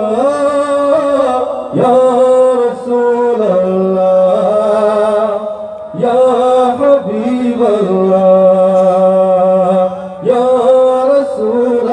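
A man singing a Bengali Islamic gazal into a microphone, drawing out long, wavering held notes in phrases of a few seconds each.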